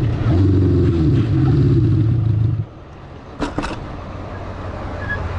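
1978 Honda CB550's air-cooled inline-four engine running with revs sagging and picking up unevenly, then cutting out abruptly about two and a half seconds in: the engine stalling. Two sharp clicks follow about a second later, then a faint rushing noise slowly grows.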